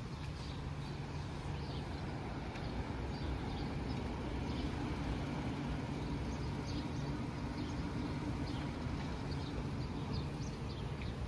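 A steady low mechanical hum, with small birds chirping briefly now and then.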